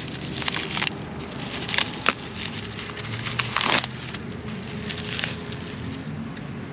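Hard plastic clicking and rustling as a motorcycle mirror is picked up and handled, a few sharp clicks and a longer scrape near the middle, over a low steady hum.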